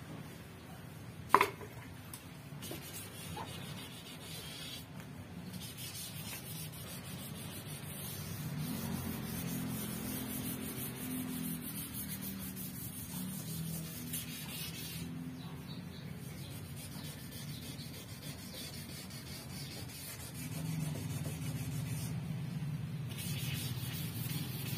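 A car's door panel being hand-sanded with sandpaper: a steady scratchy rubbing that breaks off briefly a few times, as the paint is sanded down for repainting. One sharp knock about a second in is the loudest sound, and a low hum runs underneath from about a third of the way through.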